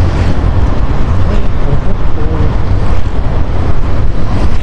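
Steady rumble of a motor scooter ride picked up by a helmet-mounted microphone with a fur windscreen: wind, engine and tyre noise blended together.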